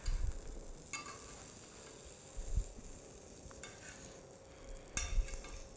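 Metal utensil scraping and tapping in a skillet as an omelette is folded, over a faint sizzle from the hot pan, with a few low bumps.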